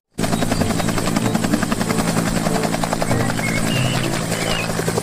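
Bell UH-1 Huey military helicopter lifting off and climbing, its two-blade main rotor making a fast, even beat over the steady running of the turbine.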